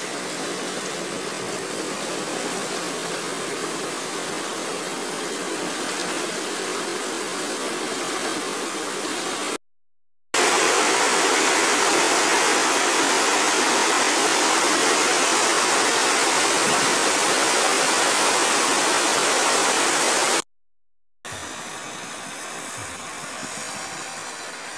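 Muddy floodwater rushing, a steady noise of running water in three stretches broken by two brief silences. The middle stretch, over churning rapids, is the loudest.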